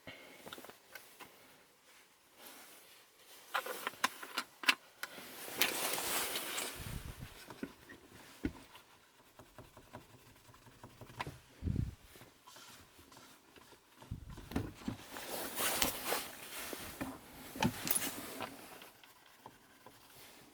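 Faint handling noise of the Saab 9-5's dashboard buttons being wiped clean with an alcohol-soaked cotton ball: rustling, small plastic clicks and a few dull low thumps.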